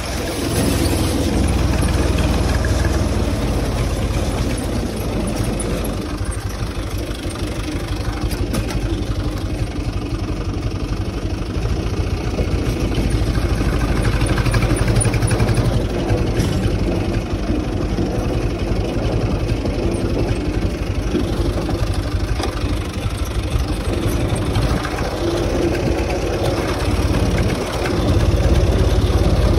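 UTB 445 tractor's diesel engine running steadily, growing a little louder near the end.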